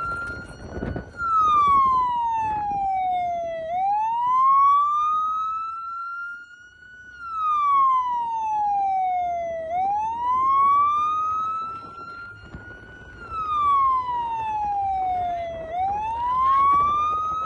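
Emergency vehicle siren on a slow wail: the pitch falls slowly over about three seconds, then rises again over about three seconds, and repeats.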